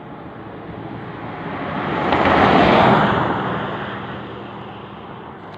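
A vehicle passing by: a steady rushing noise that swells to a peak about halfway through and then fades away.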